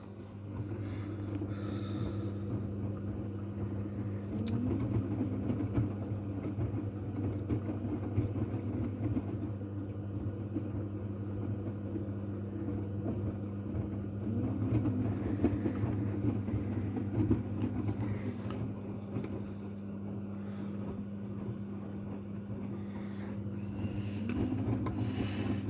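AEG washing machine running, a steady motor hum with rumble that comes up about half a second in.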